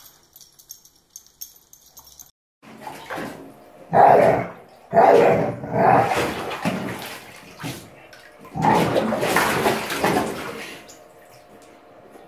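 A dog splashing in a bathtub of shallow water, pawing and dunking its head. The splashes come in uneven bursts starting about two seconds in, the sharpest near the middle.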